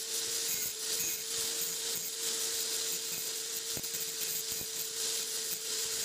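Electric angle grinder running with a steady motor whine, its abrasive disc grinding the end of an old steel drill bit held in a vise, giving a steady high hiss.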